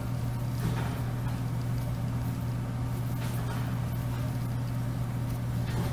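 Steady low background hum, even throughout, with faint soft rustling from yarn being worked on a metal crochet hook.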